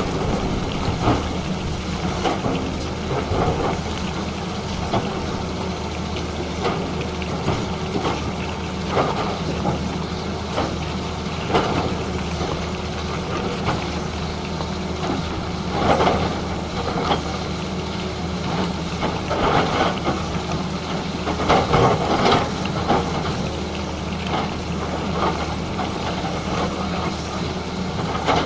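Excavator's diesel engine running steadily, with irregular knocks and scraping bursts from the bucket cutting into the road surface, heaviest about two-thirds of the way through.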